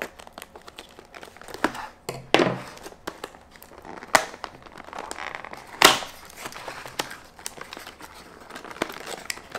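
A cardboard retail box being slit and pried open by hand: crinkling, rustling and tearing of packaging, with scattered sharp clicks and taps, the loudest about six seconds in.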